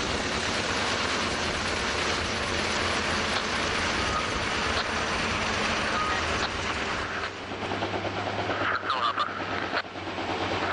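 Kaman K-MAX helicopter with intermeshing twin rotors working close overhead, a loud dense rush of rotor and engine noise. About seven seconds in the sound drops to a steadier, lower hum as the helicopter hovers farther off.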